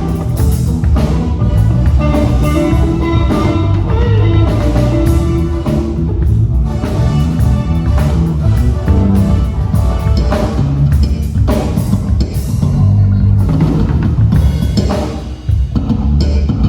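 Live band playing an instrumental passage with drum kit and bass, loud and steady, without vocals.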